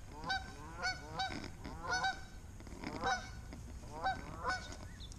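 Geese honking repeatedly in short calls, roughly one or two a second, agitated at a person close by.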